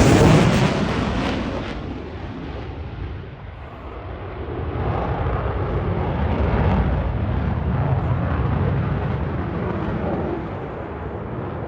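Jet noise from an F-35 fighter's single afterburning turbofan. It is loud at first and dies away over a few seconds after a pass, then swells again from about four seconds in and eases off near the end.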